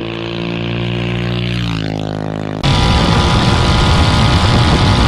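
Mini bike's single-cylinder Tillotson 263cc engine running at steady high revs, its pitch dipping slightly about two seconds in. About halfway through it switches abruptly to a louder, rougher full-throttle run.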